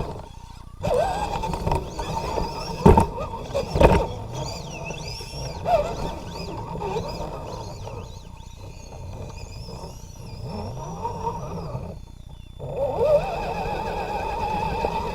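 Electric motor and geared drivetrain of a 1/10-scale RC scale 4x4 truck whining as it drives, the pitch rising and falling with throttle, with a few sharp knocks in the first few seconds.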